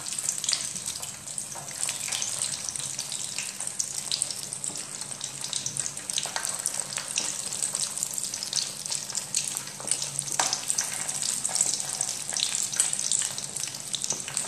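Battered mussels deep-frying in hot oil in an enamel pan: a steady sizzle with frequent small crackles and pops.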